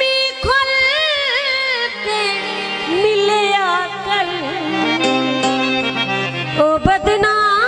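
Traditional folk music: an ornamented melodic lead that bends and slides between notes over steady low held notes. There is a short break near the end before the lead comes back in.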